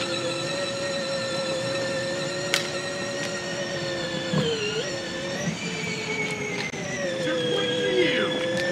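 Electric drive motors and gearbox of a modified Power Wheels ride-on toy car whining steadily as it drives, the pitch dipping briefly about halfway through.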